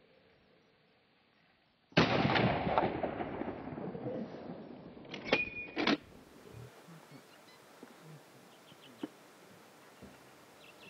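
A heavy hunting rifle fires once about two seconds in, and the report rolls on and fades over about three seconds. Two short, sharp clicks follow close together. After that there is only a faint background with small ticks.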